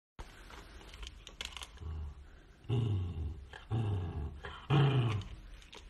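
A puppy growling low three times, each growl about half a second long, while it gnaws a rawhide bone.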